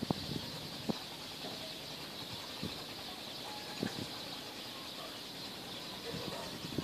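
Outdoor ambience at a lake: a steady high hiss, with a few faint knocks and short faint chirps scattered through.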